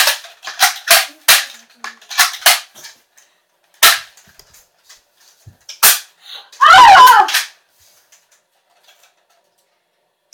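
Nerf foam-dart blasters, one a revolver-style Strongarm, firing: a quick run of sharp pops in the first second and a half, then single shots spaced out. Just past the middle comes a loud drawn-out yell, the loudest sound.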